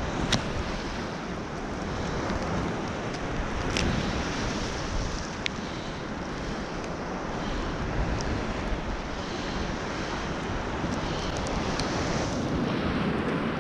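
Sea surf washing against the shore, with wind buffeting the microphone and a few sharp clicks.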